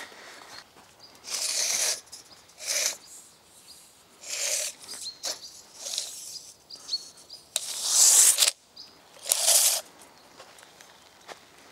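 Footsteps crunching irregularly on dry leaf litter and loose soil, the loudest a little past the middle, with small birds chirping briefly between them.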